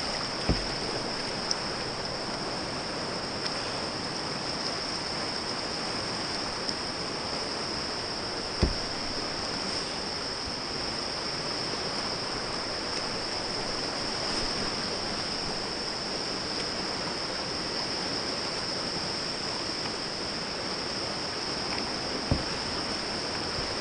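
Whitewater river rushing steadily around a kayak, a continuous hiss of fast current heard close up, with a few sharp knocks, three in all.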